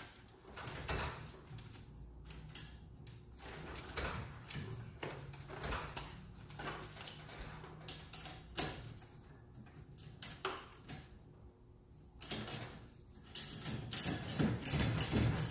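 Scattered clicks and clanks of hand tools and metal hardware being handled during garage door torsion spring work, with a faint low hum for a few seconds midway and busier, louder handling noise near the end.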